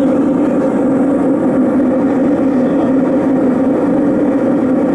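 Steady cabin noise of an Airbus A380 in cruise, heard from a window seat: an even, unchanging drone of engines and airflow with a low hum running through it.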